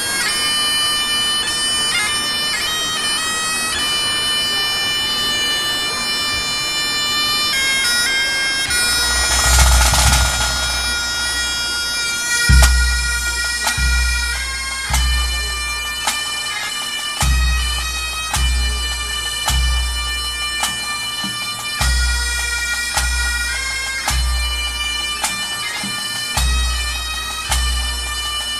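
Pipe band playing a tune on Highland bagpipes: the steady drone under the moving chanter melody. About nine seconds in a bass drum comes in, striking heavy beats roughly once a second.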